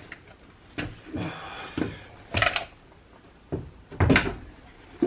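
A Ford Transit rear seat being manoeuvred and locked into the van's floor fittings: about six hard metal clunks and knocks, with scraping in between, the loudest about two and a half seconds in and again about four seconds in.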